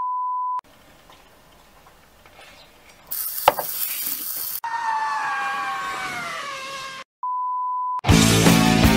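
A steady beep tone at the start and again about seven seconds in. Between them, a hiss with a sharp click about three and a half seconds in, then a long squeal falling in pitch. Music with a beat starts near the end.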